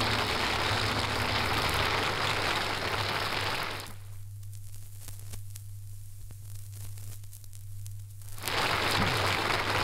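Studio audience applause heard through the crackle of an old acetate disc transfer, cutting off abruptly about four seconds in. What remains is the disc's surface noise: faint crackle and clicks over a steady low hum. The applause comes back suddenly about a second before the end.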